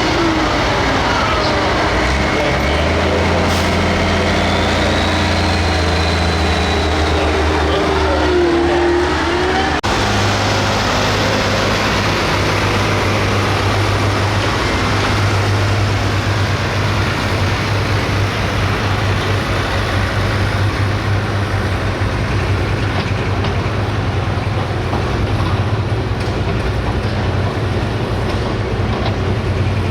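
Hot farm pulling tractor's 510 cubic inch diesel engine running hard and loud. Its pitch rises and falls in the first third, then the sound changes abruptly about ten seconds in and holds a steady drone.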